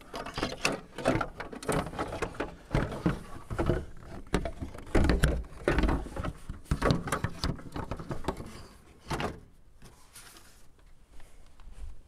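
The plastic steering-column collar of a John Deere 3025E compact tractor being worked into its side track and pressed down over the steering wheel: a run of irregular plastic knocks, clicks and rattles. The heaviest thump comes about five seconds in, and the sounds die away after about nine seconds.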